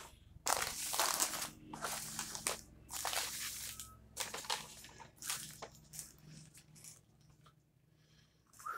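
Paper fast-food wrappers and cardboard fries boxes rustling and crinkling as a burger is unwrapped and the food set out. The rustling is thickest in the first few seconds and thins to a few faint rustles later.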